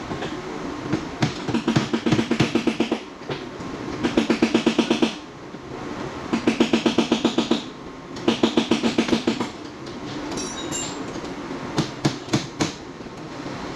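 Rapid hammer taps on the Toyota Hilux's sheet-metal body panel, working out front crash damage. The taps come in several bursts of about a second each, many taps a second, then a few single strikes near the end.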